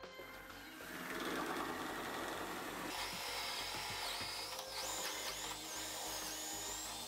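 Makita DF333D 12 V cordless drill-driver driving a screw into a pocket hole in pine. The motor starts about a second in and runs under load, its high whine rising and falling in pitch as the screw is driven home.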